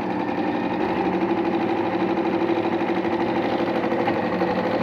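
Singer electric sewing machine running at a steady speed, the needle stitching in a fast, even rhythm.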